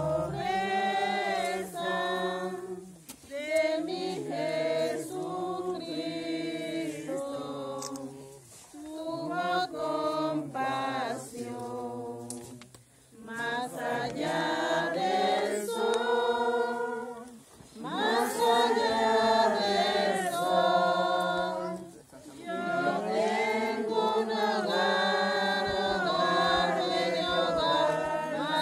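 A group of people singing a hymn together without accompaniment, in long phrases of several seconds with brief pauses between them.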